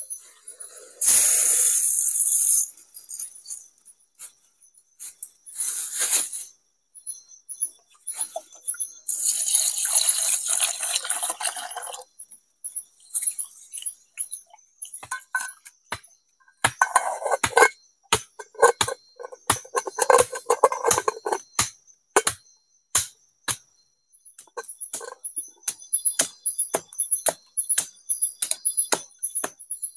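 Camp cooking over a wood fire: water pours into a pot of rice for a few seconds near the middle, then comes a run of sharp snaps and crackles from the fire and its sticks. A high, evenly repeated chirp, like a night insect, goes on underneath.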